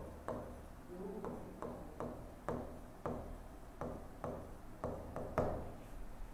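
Stylus tapping and ticking on the glass of an interactive display as handwriting is written, faint irregular clicks about two or three a second over a low steady hum.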